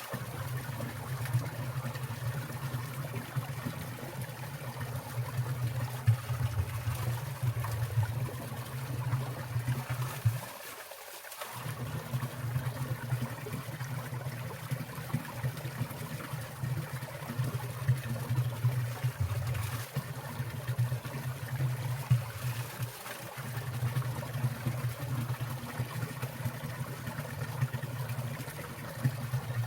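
Water of a winter valley stream trickling and falling, with small splashes over a steady low rush; the low rush drops out briefly twice.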